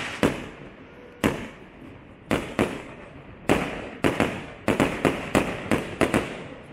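Aerial firework shells bursting, each a sharp bang that trails off in an echo. At first the bangs come a second or so apart, then about four seconds in they quicken to three or four a second.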